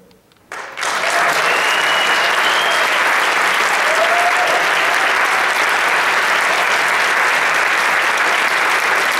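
Audience applauding at the end of a song, breaking in suddenly about half a second in and then running steadily, with a brief whistle above it about two seconds in.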